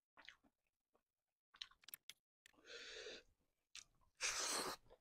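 Close-miked mouth sounds of eating squid in spicy sambal with rice by hand: short wet smacks and clicks, then two longer noisy sucking sounds, the louder one near the end as a handful goes into the mouth.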